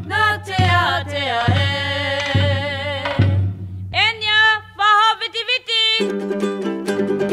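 Background music: a sung melody over a steady low beat, the beat dropping out about three seconds in, then a plucked string instrument starts strumming near the end.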